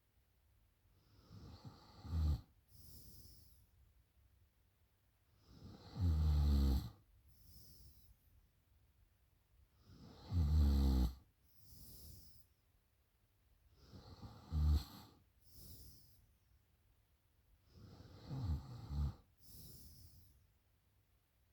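A woman snoring in her sleep: five loud, low snores on the in-breath, about every four seconds, the last one broken in two. Each snore is followed by a softer, breathy out-breath.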